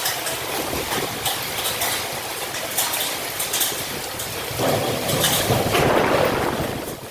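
Storm noise of rain and wind, a steady rushing hiss with scattered crackles, swelling louder for about two seconds in the second half.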